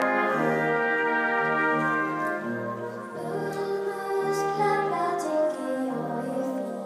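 Small brass ensemble playing sustained chords over a low bass note repeated about once a second, a little quieter from about two seconds in.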